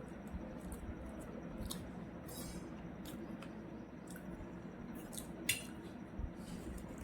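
Eating sounds of fried food and noodles: scattered small clicks and clinks of tableware, with one sharper clink about five and a half seconds in.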